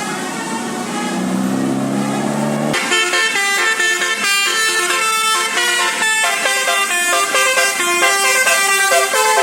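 Bus 'telolet basuri' melody horn playing a quick tune of short pitched notes, starting abruptly about three seconds in. Before that, a lower steady sound over background noise.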